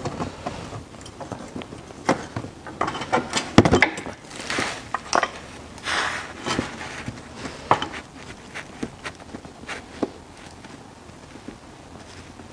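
Scattered light clicks, knocks and rustles of hands pulling the near oil hose and its clamp off the external CVT oil filter of a Nissan Murano Z51, with a sharper click about three and a half seconds in. The handling noises thin out over the last couple of seconds.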